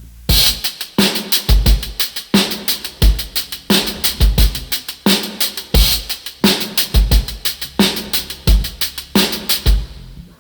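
Drum kit beat: kick drum thumps and snare hits with cymbals in a steady rhythm, with the bass slightly boosted for a tone check. The beat drops out briefly near the end.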